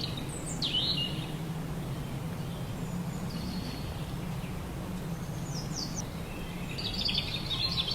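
Outdoor ambience: steady background noise with a few faint, short, high bird chirps, including a falling chirp about half a second in and a quick cluster of chirps near the end.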